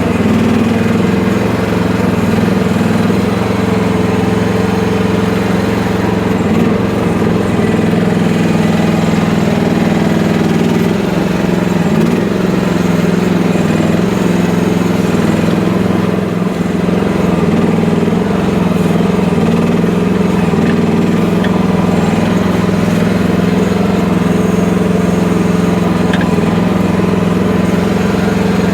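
FF12 mini excavator's engine running steadily, a constant low drone.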